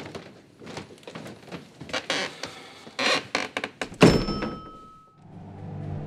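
Scattered clicks and knocks of a front door and its handle being worked, then one loud thunk against the door about four seconds in, with a brief ringing after it. Soft music comes in about a second later.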